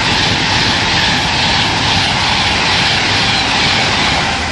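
Virgin Pendolino (Class 390 electric tilting train) passing close at high speed: a steady, loud rush of wheels and air, easing off near the end as it moves away.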